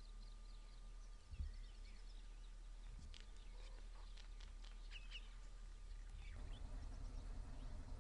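Faint wild ambience of many small birds chirping and calling in short, quick notes, thickest in the middle. There is one low thump about a second and a half in, and a steadier low rumble comes up near the end.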